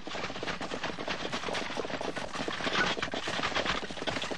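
Horse-drawn war chariots on the move: a dense, fast clatter of hooves and wheels with no pause.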